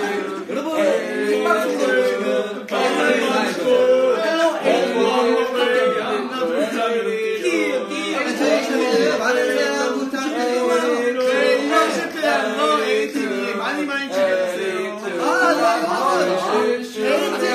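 Several young men singing together in a loose group.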